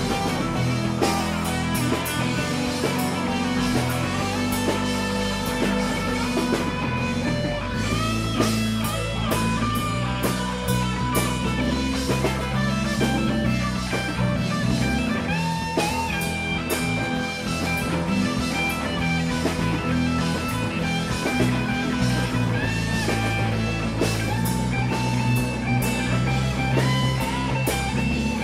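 Live rock band playing an instrumental passage with no vocals: electric guitar playing bent, sliding notes over bass and drum kit.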